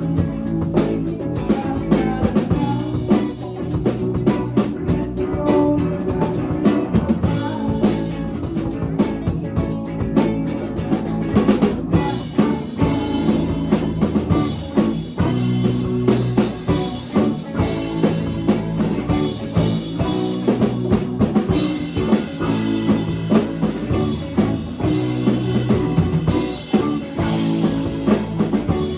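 A live rock band playing, with the drum kit's snare and bass drum keeping a steady beat over bass and other instruments.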